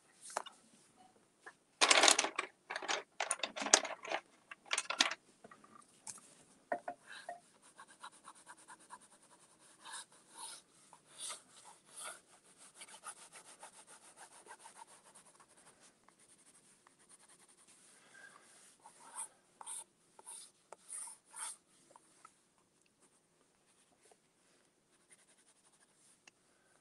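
Coloured pencil scratching and rubbing on paper in repeated strokes. The strokes are loudest about two to five seconds in, then go on more softly and fade out a few seconds before the end.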